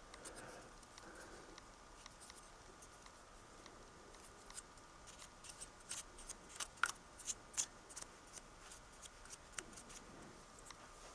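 Faint scattered clicks and light taps of small parts being handled, over a faint steady hum.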